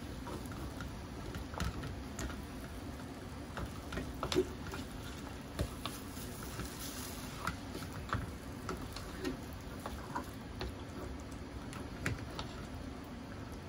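Plastic spatula stirring thick curry and meat in a square aluminium camping cooker, giving irregular scrapes and light taps against the pan over a steady low hiss from the gas burner.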